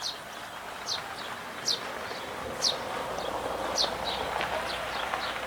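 House sparrows chirping: short, sharp chirps, each falling in pitch, about one or two a second. A steady background noise rises behind them from about two seconds in.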